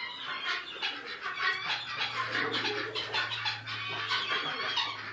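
Chickens clucking and chirping, a busy run of short, high calls one after another.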